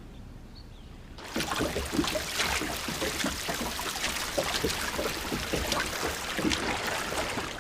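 Water splashing and trickling, starting about a second in with many small splashes and gurgles, then cutting off abruptly near the end.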